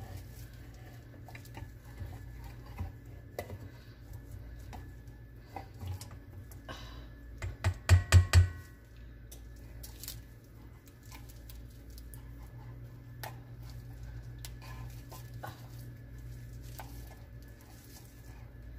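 Spatula scraping the inside of a tin can of sweetened condensed milk, with light scattered clicks and scrapes. About eight seconds in comes a quick run of about five loud knocks.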